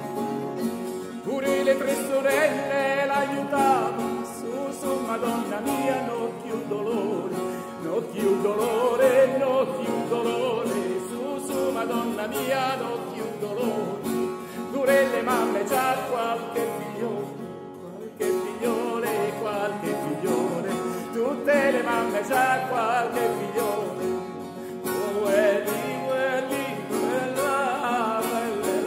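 Tenor singing a slow tarantella in Italian dialect, phrase by phrase, over strummed baroque guitar with theorbo, lute and harp.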